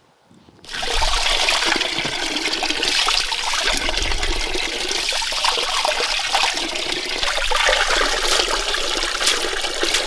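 Running water, a loud steady rush that starts abruptly about a second in.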